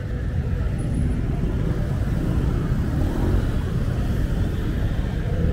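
Street traffic in a jam: engines of cars and motorbikes idling and creeping along, making a steady low rumble.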